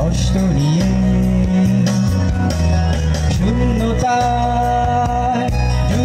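Music with singing: held, gliding sung or melodic notes over a steady bass line and a regular beat.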